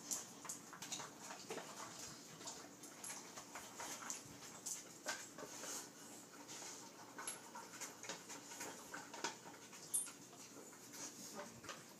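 Boxer dogs nosing and pushing a plastic treat-puzzle toy across a tile floor: scattered light clicks and scrapes of plastic, with dog sounds mixed in.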